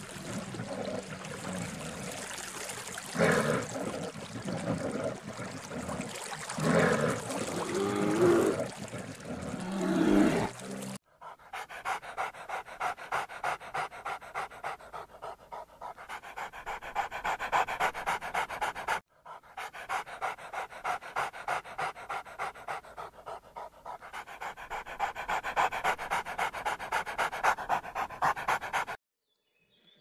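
Brown bears wrestling in water, growling in loud bursts over splashing. After a sudden cut comes a dog panting quickly and rhythmically, about two to three breaths a second, in two stretches with a brief break between them.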